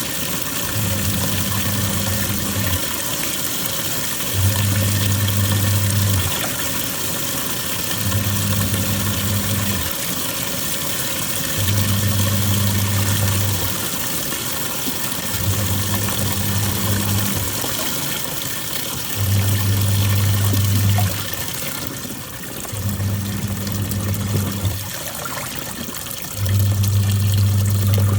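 Twin-tub washing machine in its wash cycle: the motor hums in runs of about two seconds with short pauses between, about every four seconds, as the pulsator turns one way and then the other, over continuous sloshing water.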